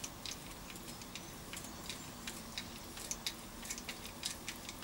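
Light clicking from a hand-pumped hydraulic crimping tool as its handle is worked to close a lug onto a heavy battery cable, several clicks a second, unevenly spaced.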